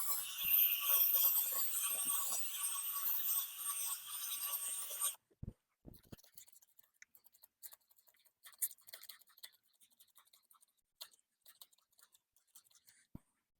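A drill spins a 1500-grit sanding disc across a wet plastic headlight lens, making a steady hiss with a whine. The drill stops suddenly about five seconds in, and faint clicks and rustles of handling follow.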